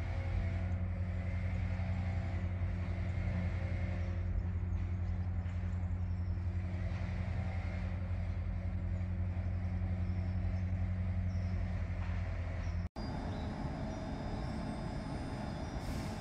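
Underfloor diesel engines of a Northern Class 195 multiple unit running steadily, a constant low hum. About thirteen seconds in it cuts off abruptly, and a rougher, noisier rumble follows.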